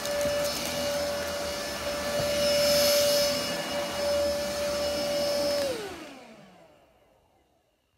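Philips FC6823 cordless stick vacuum cleaner running with a steady whine. It is switched off near the end, and its motor's pitch falls as it spins down to silence.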